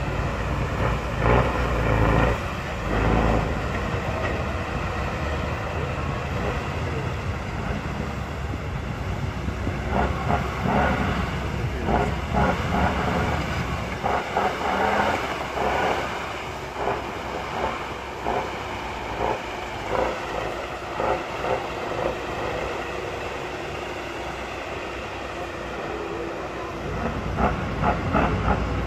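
Heavy off-road trial truck's diesel engine working under load as the truck crawls over rough ground, loudest in the first several seconds and easing off later.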